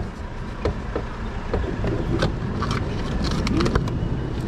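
A run of clicks and knocks as a vending machine's hinged delivery flap is worked and a frozen salmon pack is pulled out, over a steady low rumble of traffic.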